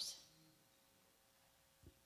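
Near silence: room tone with a faint steady hum, and one soft low thump near the end.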